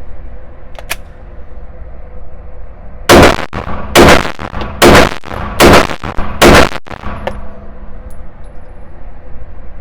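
Five 9mm pistol shots from a Glock 34 Gen 5, fired at a steady pace about one every 0.8 seconds, starting about three seconds in, each with a short ringing tail. Two faint clicks come before the shots.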